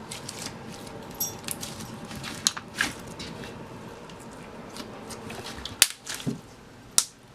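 Glossy, clicky slime being squeezed and poked by hand, making irregular sticky clicks and small pops, with a few sharper snaps.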